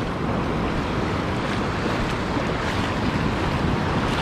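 Ocean surf washing in over the shallows, a steady rushing wash with no distinct breaks, and wind rumbling on the microphone.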